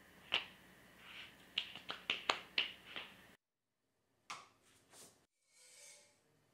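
Raw rolled chapati dough slapped from hand to hand, about eight sharp slaps in quick uneven succession. After a cut, a single click and then a soft hiss as the chapati cooks on the hot pan.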